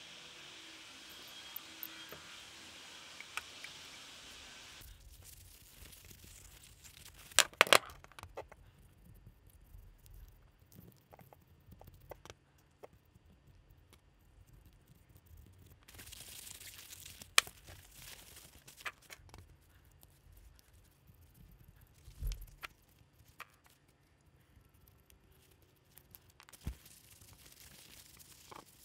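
Handling sounds from cleaning small blued steel wrench parts: scattered sharp clicks of metal parts knocking together or being set down, the loudest a pair about seven seconds in, with paper towel rustling and crinkling between them. A steady background noise fills the first five seconds and then stops.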